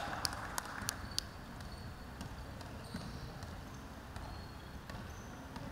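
Basketball being dribbled on a hardwood gym floor: quick bounces about three a second through the first second or so, then fewer, with a few short high sneaker squeaks on the court.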